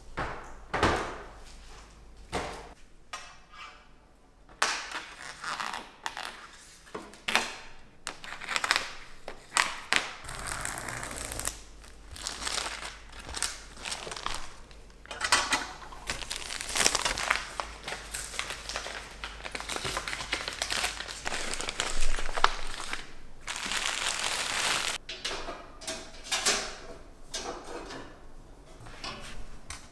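Unpacking and putting together IKEA kitchen organizers: packaging crinkling and rustling, with scattered clicks and light knocks as the metal and plastic parts are handled and set down.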